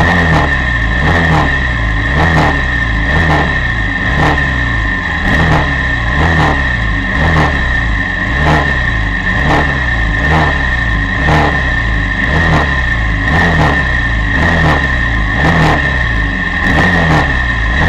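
Honda VFR400's V4 engine revved in short blips about once a second on the starting grid, each rev rising and falling, with a steady high whine underneath.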